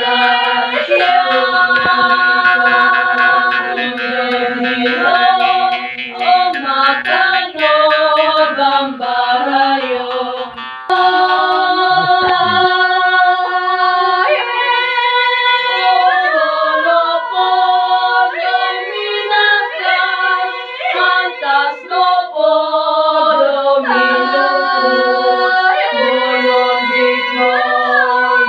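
A group of voices singing a traditional Dusun gonding chant a cappella, several long held notes overlapping and gliding between pitches. The sound changes abruptly about eleven seconds in, then the held voices carry on.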